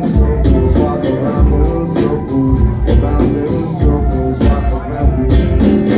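A live rock band playing a song, with a steady, evenly repeating drum beat over a heavy bass line.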